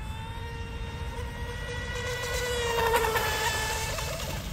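Electric RC speedboat's brushless motor and propeller whining at high speed, a steady high pitch that grows loudest about three seconds in as the boat passes close, with a hiss of spray thrown off the hull.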